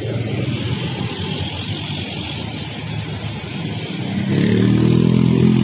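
Diesel truck engines and tyres on the road as a log-laden truck pulls away. About four seconds in, a louder, steady engine drone comes in as another truck draws near.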